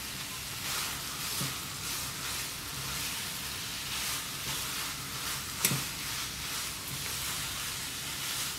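Leftover aviyal (mixed vegetables and coconut) sizzling in coconut oil in a frying pan as it is dry-fried to brown, stirred with a wooden spatula in repeated scraping strokes. One sharp knock of the spatula on the pan comes about two-thirds of the way through.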